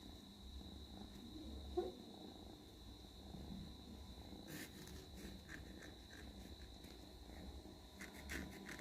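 A cat making a quiet low rumble that comes and goes, with a faint steady high-pitched whine behind it and a few light clicks about halfway through and again near the end.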